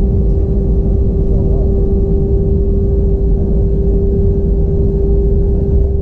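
Airbus A320 cabin noise heard from a window seat: a steady, heavy low rumble with one constant whining tone from the IAE V2500 engines.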